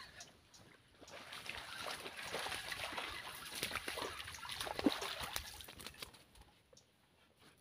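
Shallow water splashing and sloshing among flooded grass as something churns through it, with a sharper splash about five seconds in; it dies down near the end.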